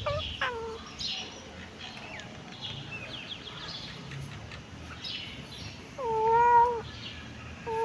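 Kittens meowing: a few short, faint high-pitched mews, then one loud drawn-out meow about six seconds in, and another beginning at the very end.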